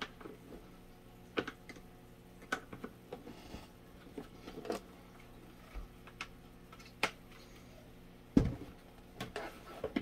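Scattered clicks and taps of a small plastic box fan being handled and put back together, with a louder thump about eight seconds in, over a faint steady electrical hum.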